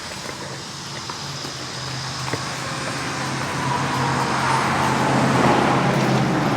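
A motor vehicle running with a steady low hum, joined by rising road noise that grows louder over the second half.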